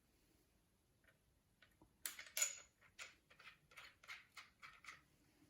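A run of small, sharp clicks and taps, about two or three a second from roughly two seconds in, from metal parts and tools being handled while a new bicycle stem is fitted and lined up.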